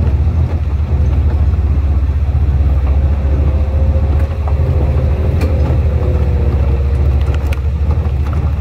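Jeep engine running steadily as it drives slowly, a deep, evenly pulsing drone heard from aboard the jeep.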